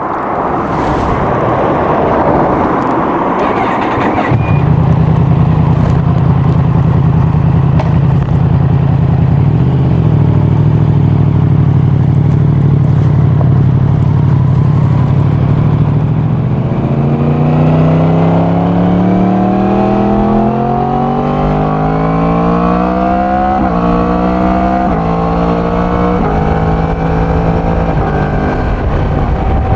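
Yamaha MT-10 crossplane inline-four on its stock exhaust, ridden while still being run in. Wind rush covers the first few seconds. From about four seconds the engine holds a steady note at constant speed. From about seventeen seconds it accelerates with the pitch climbing, and near the end comes a run of quick upshifts, each a sudden drop in pitch.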